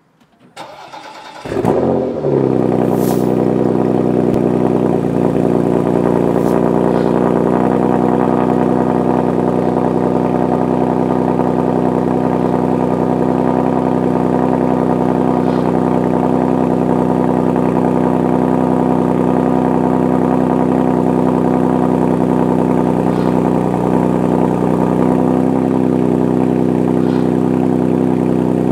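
Porsche Macan Turbo's twin-turbo V6 starting about two seconds in, flaring briefly, then idling steadily.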